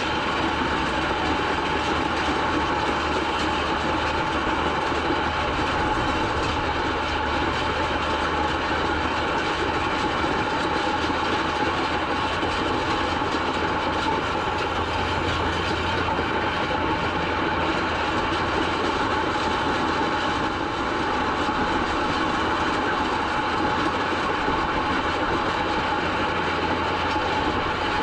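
Ford TW-20 tractor's six-cylinder diesel engine running steadily under load while pulling a set of 40-foot ring rolls across a field, with the rumble of the rolls mixed in.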